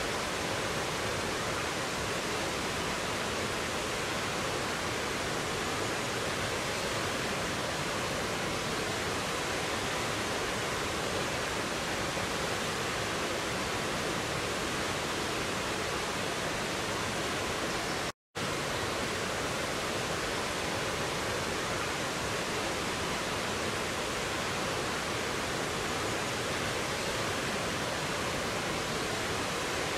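Rocky mountain stream rushing over cascades and a small waterfall: a steady, even rush of water, broken once partway through by a split-second dropout.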